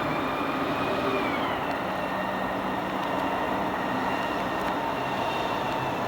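Steady vehicle noise with a high whine that drops in pitch about a second and a half in.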